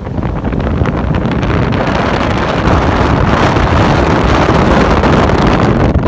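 Storm-force wind buffeting the microphone on a ferry's open deck: a loud, heavy rush and rumble that builds over the first second and thickens into a fuller gust from about two seconds in.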